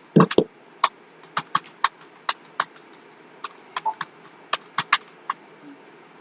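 Computer keyboard being typed on: an irregular run of sharp key clicks, about three a second, with short pauses between strokes.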